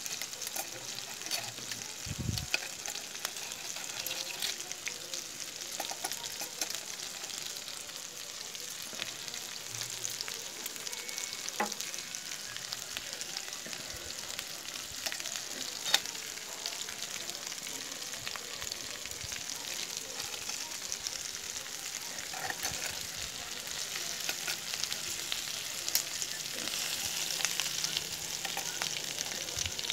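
Diced pork frying in a hot pan: a steady sizzle full of small crackles and pops, with one sharp pop about sixteen seconds in and a low knock near the start. The sizzle grows a little louder and denser near the end.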